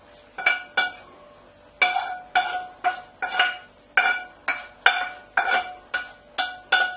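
Metal frying pan knocked over and over while its onion, leek and ham filling is scraped out into a bowl. Each knock rings with the same metallic tone, coming about twice a second after a short pause.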